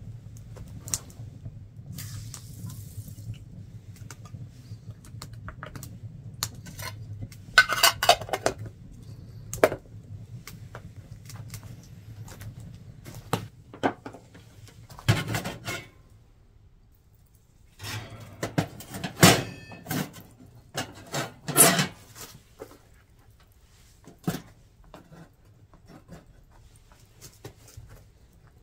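Metal clanking and scraping as the cast-iron lid rings of a wood cookstove are lifted off and a metal mess tin of rice is set on a trivet over the fire. There are a few loud clanks among many small clicks, over a low rumble that stops about halfway through.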